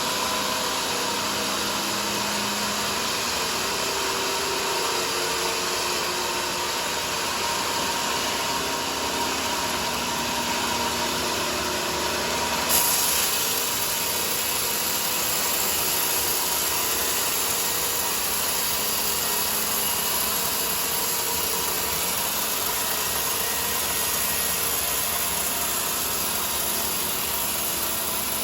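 Band sawmill running steadily through a teak log, a dense unbroken machine-and-sawing noise. About halfway through the high end of the sound changes suddenly, with a brief louder moment.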